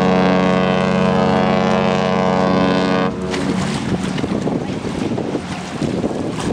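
Allure of the Seas cruise ship's horn sounding one long, steady blast that cuts off about three seconds in, followed by wind on the microphone and water noise.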